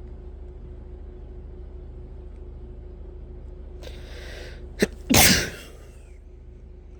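A person sneezing once, hard: a hissing in-breath about four seconds in, a short sharp catch, then a loud explosive sneeze.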